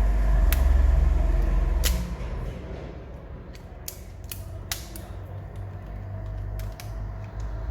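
Handling noise as holders are fitted onto a phone whose newly glued screen is being pressed down: a heavy low rumble for about the first two seconds, then scattered sharp clicks and taps.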